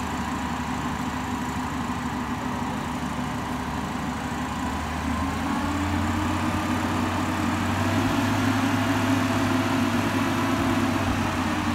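Diesel engine of a truck-mounted crane running steadily, then picking up speed about five and a half seconds in and staying at the higher speed, with a deeper, louder hum.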